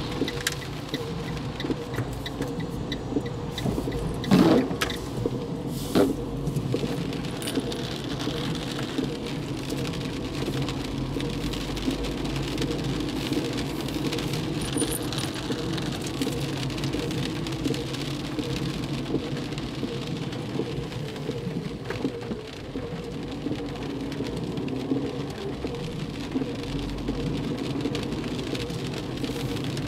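Car driving in heavy rain, heard from inside: steady engine and tyre noise on the wet road with rain ticking on the body and windscreen. Two sharp knocks stand out, about four and a half and six seconds in.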